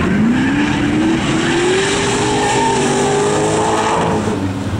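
Rally car's small-block Chevrolet 302 V8 revving hard under acceleration. Its pitch rises over about the first two seconds, then holds high.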